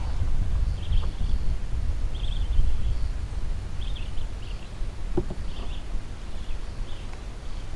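Wind buffeting the microphone with a steady low rumble, with short high chirps recurring every second or so and a single click about five seconds in.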